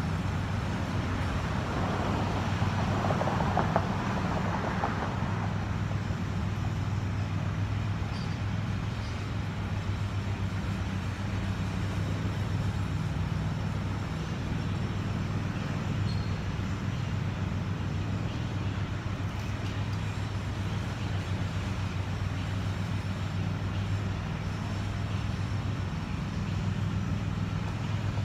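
Steady low drone of urban background noise, with a brief louder rushing swell between about two and five seconds in.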